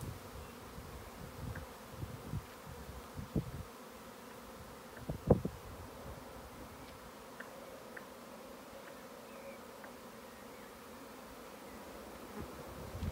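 Honeybee swarm buzzing in a steady hum as it is being hived. Low thumps come in the first few seconds, and one sharp knock about five seconds in.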